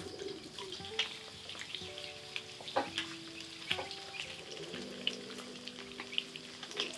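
Chicken pieces deep-frying in hot oil in an iron wok: a steady sizzle with scattered sharp clicks and pops.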